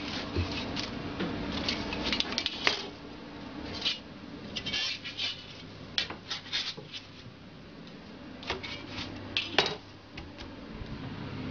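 Metal crêpe spatula scraping and knocking against a crêpe griddle and a stack of crêpes as they are lifted and stacked: irregular clicks and short scrapes, the sharpest about nine and a half seconds in, over a steady low hum.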